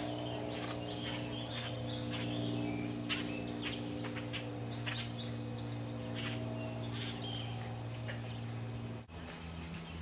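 Small birds chirping and calling in short high notes, with a quick run of song about five seconds in, over a steady low hum. The hum changes abruptly near the end.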